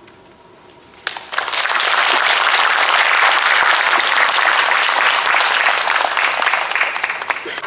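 Audience applauding: dense clapping starts about a second in, holds steady for around six seconds, then stops abruptly near the end.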